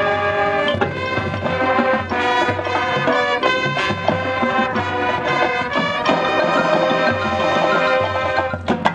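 High school marching band playing live: loud sustained brass chords that shift every second or so over percussion. Near the end the sound changes to sharp, evenly spaced percussion hits.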